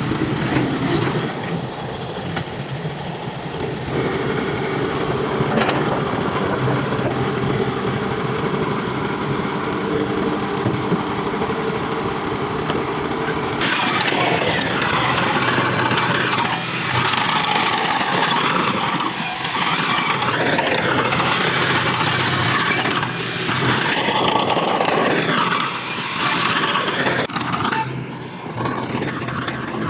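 Heavy earthmoving machinery at work: a diesel engine runs steadily. About halfway through, a louder, rougher sound with wavering higher tones takes over.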